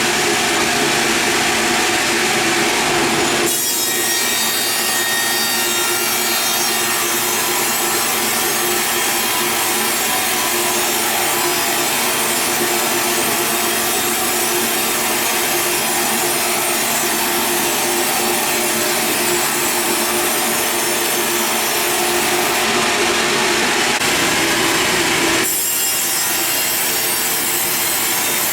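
Sawmill saw blade cutting lengthwise through a large log: a loud, steady sawing noise. The sound shifts abruptly a few seconds in and again near the end.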